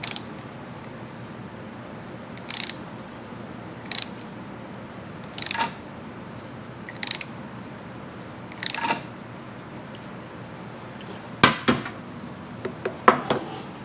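Socket ratchet snugging down the centre bolt of a two-stroke motorcycle's magneto: a short burst of ratchet clicks about every one and a half seconds as the handle swings back. Near the end come a few louder sharp metal clanks as the wrench and ratchet are taken off.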